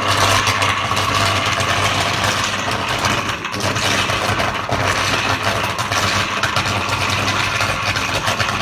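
Large Caterpillar generator engine running, a loud, steady drone with a low hum underneath.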